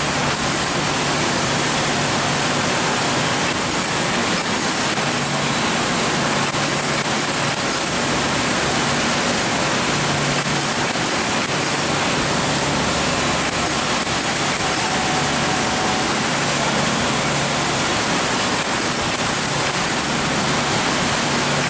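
Steady machine noise from a motor-driven roller glue-coating machine running as foam shoe-tongue pads are fed across its glue roller, amid the general din of factory machinery, with a faint low hum.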